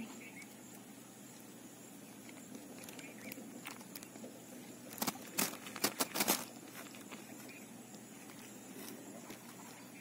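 A quick run of sharp taps and slaps about five to six and a half seconds in, over a steady faint outdoor hiss.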